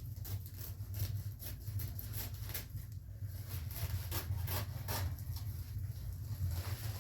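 A series of irregular scrapes and knocks, as of wood being handled or rubbed, over a steady low hum.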